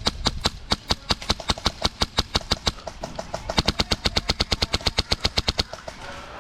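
Airsoft gun fire: a steady run of sharp cracks, about eight to ten a second, that stops about five and a half seconds in.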